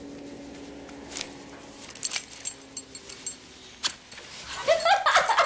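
Light metallic jingling and clicks, like keys or small metal things being handled, over a low steady hum. From about four and a half seconds in, a dog whines in loud, high, wavering cries.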